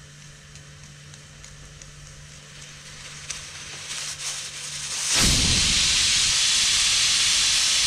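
Stovetop pressure cooker letting off steam: after a few faint ticks at the weight valve, about five seconds in the weight lifts and steam escapes in a loud, steady hiss. This is the cooker's whistle, the sign that full pressure is reached, one of the 3-4 whistles counted to cook the dal.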